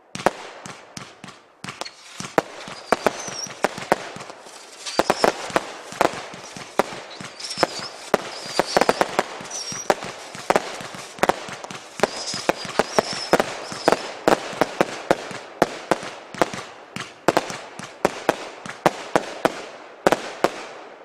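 The 'Real Steel' firework cake firing its sequence: rapid shots and star bursts one after another, several a second, with a crackle and hiss between them.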